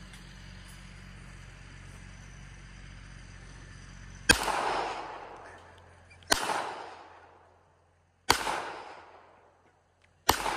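Four handgun shots, evenly spaced about two seconds apart, each sharp crack followed by an echo that fades over a second or so; the first comes about four seconds in, after a quiet stretch of faint outdoor background.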